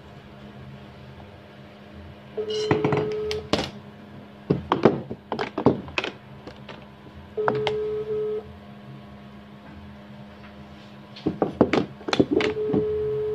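Telephone ringback tone from a phone on speaker: a steady beep about a second long, heard three times about five seconds apart, as the called number rings. Sharp clicks and knocks from handling are scattered between the beeps.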